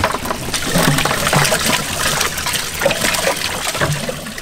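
Seawater dripping and splashing out of a cast net as a catch of live ballyhoo is shaken out into a bucket: a dense patter of small splashes and ticks. Near the end, water sloshes as the bucket is tipped into the boat's livewell.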